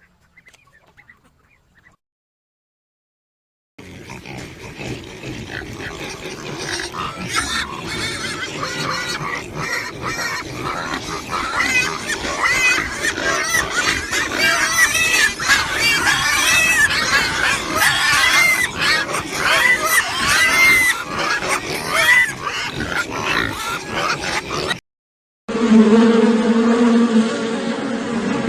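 A loud, dense chorus of many farm animals calling over one another, with many short, high, bending calls, starting a few seconds in. Near the end it cuts to a different, steady droning sound.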